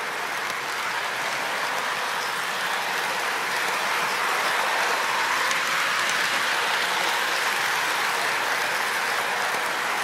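Lionel model train running along its three-rail track, a steady noisy rolling of wheels and motor picked up from right on the moving car.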